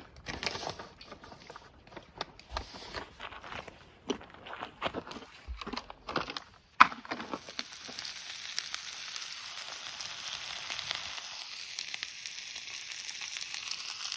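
Handling clicks and rustles of cooking gear, then a sharp click about seven seconds in, after which beef starts sizzling steadily in a hot pan.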